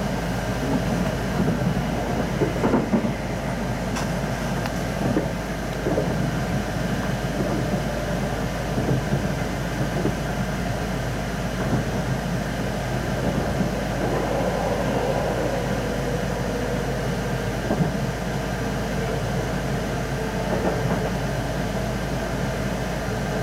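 Keihan electric train running along the line, heard from inside the carriage: a steady rumble of wheels on rail with a few sharp knocks in the first few seconds. A faint steady tone comes in about halfway.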